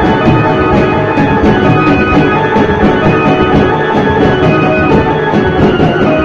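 Procession drums beaten in a quick, steady rhythm, loud, with held pitched tones sounding over the beat.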